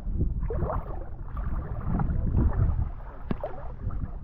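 Shallow water sloshing and splashing around the legs of a person wading, in irregular surges.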